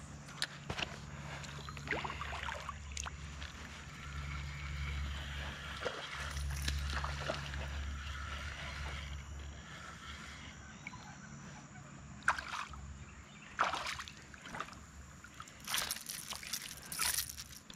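Spinning reel being cranked to bring in a hooked smallmouth bass, with water lapping at the kayak, then the fish splashing and thrashing at the surface beside the kayak several times over the last six seconds.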